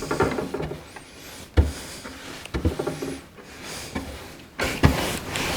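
Handling sounds as furniture wax is got out to be applied to a mahogany table top: a couple of light knocks, about a second and a half in and again near the end, over faint rubbing and shuffling.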